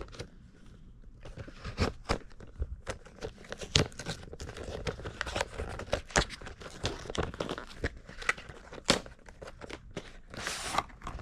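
Retail packaging of a GoPro Enduro battery two-pack being cut and pried open: a busy run of irregular sharp clicks and rustling.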